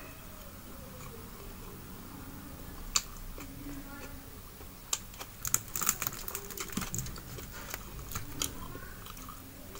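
Close-up eating sounds: chewing, with a sharp click about three seconds in, then a run of sharp clicks and crinkles in the second half as fingers pick apart fried fish on aluminium foil.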